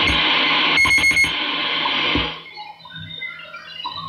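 Shortwave receiver static from a Kenwood TS-440S with a BHI DSP noise-reduction unit: a steady hiss, with a quick run of four short high beeps about a second in. At about two seconds the hiss cuts off sharply as the DSP noise reduction takes hold, leaving faint, cleaned-up signal tones over a quiet background.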